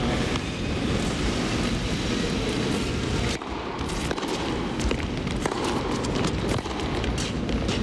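Arena crowd noise that drops off suddenly about three seconds in, then the sharp knocks of tennis racquets hitting the ball through a serve and the rally that follows.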